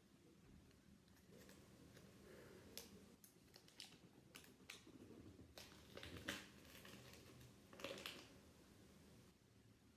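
Faint handling of trading cards: soft rustles and a scatter of small clicks and taps, clustered between about three and eight seconds in, over near silence.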